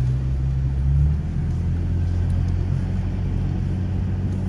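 A four-wheel-drive vehicle's engine running steadily as it drives, with a low rumble; its note drops slightly about a second in.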